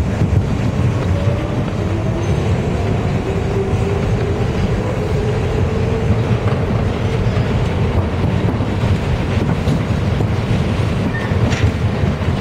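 Subway train running on elevated track, heard from inside the car: a steady rumble of wheels on the rails, with a faint whine slowly rising in pitch.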